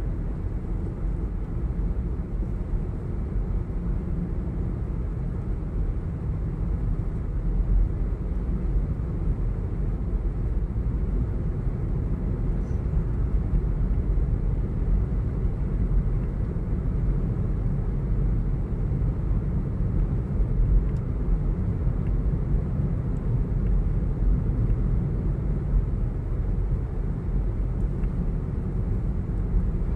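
Steady low road and engine rumble of a moving vehicle heard from inside the cabin.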